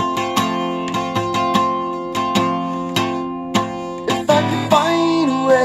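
Guitar strummed in a steady rhythm of ringing chords. A singing voice comes in near the end.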